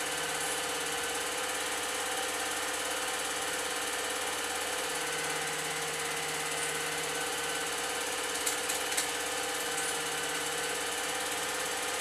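Old 8mm film projector running steadily, with a few sharper clicks about eight and a half seconds in.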